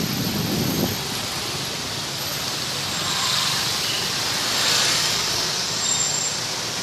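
Road traffic noise: an even rush of passing vehicles, with a low engine rumble in the first second and a vehicle passing with a rising and fading rush about four to five seconds in.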